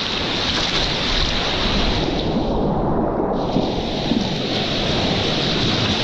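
Whitewater rapid of a high-running river rushing and splashing around an inflatable packraft as it runs through the waves. The sound goes briefly muffled, losing its hiss, about halfway through.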